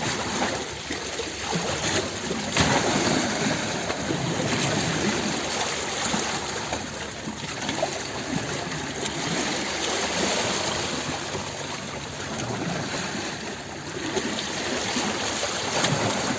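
Water in a stream splashing and rushing continuously, the level swelling and easing a little.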